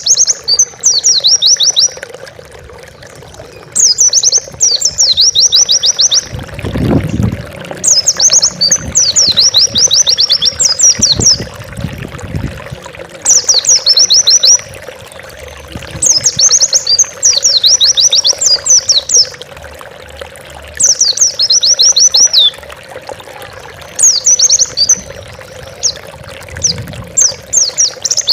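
White-eye (pleci) singing its fast, high twittering song in phrases of a second or two, repeated every few seconds with short pauses between. A faint steady hum runs underneath, with a few low thumps in the middle.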